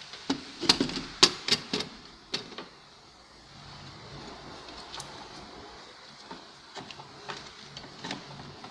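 Hands working a rubber timing belt off its camshaft sprocket: a quick run of sharp clicks and knocks in the first two seconds or so, then lighter scattered clicks and rustling near the end.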